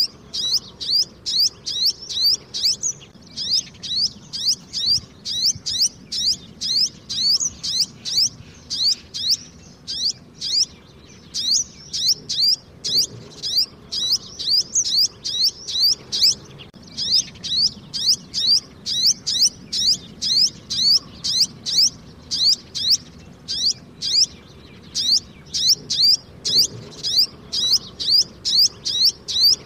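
Sunbird fledgling calling in a rapid, unbroken string of sharp, high chirps, about three a second, pausing briefly only a few times.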